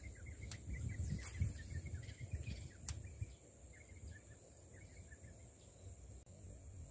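Faint dusk marsh ambience: a steady high-pitched insect drone, with small birds twittering in short repeated chirps over the first three seconds. A low rumble runs underneath, and two sharp ticks come about half a second in and near three seconds.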